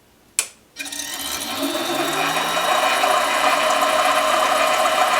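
Harbor Freight 7x10 mini lathe switched on with a click, its motor and spindle spinning up over about two seconds and then running steadily with a whine.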